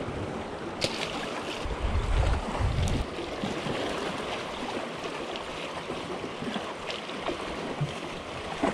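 Small waves lapping and washing against jetty rocks, a steady wash of water with a few sharp clicks and a brief low rumble about two seconds in.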